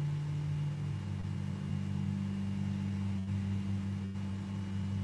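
A steady low hum of several pitches layered together, with no change.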